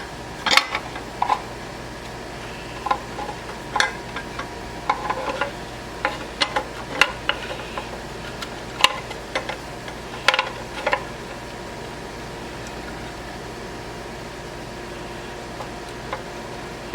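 Scattered small clicks, knocks and rustles of hands working wiring and plug connectors around a lathe headstock's circuit board, over a steady background hum. The handling stops about eleven seconds in, leaving only the hum.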